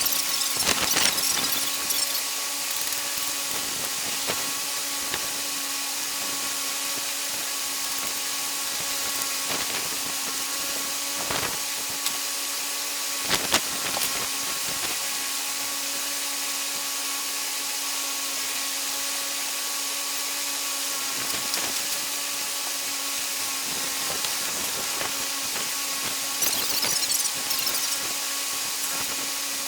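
A steady machine hum with overtones, over which packaging is handled: scattered scraping and rustling and a few short knocks, the sharpest about halfway through, as a boxed air compressor is unpacked.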